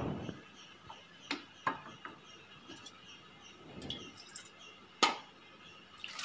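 Scattered clinks and knocks of kitchen utensils against a steel cooking pot, two close together about a second and a half in and the loudest, sharpest one about five seconds in.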